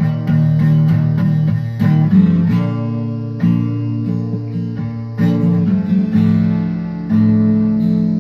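Acoustic guitar playing alone, chords strummed and notes picked, with no voice.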